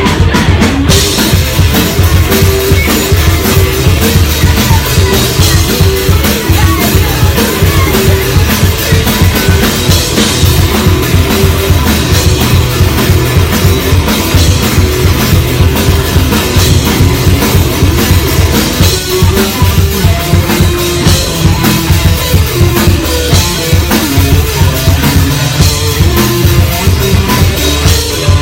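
Live rock band playing at full volume, the drum kit driving it with kick and snare under sustained bass and guitar notes.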